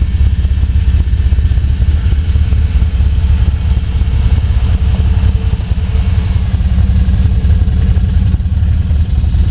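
Can-Am Outlander 500 XT ATV's V-twin engine idling steadily.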